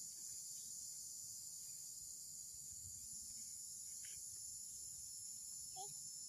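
Steady, high-pitched chorus of summer insects droning without a break, over a low rumble.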